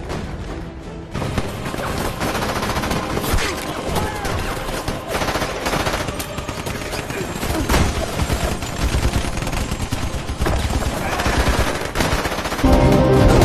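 Battle sound from a war film: dense, rapid machine-gun and rifle fire. A loud music theme comes in about a second before the end.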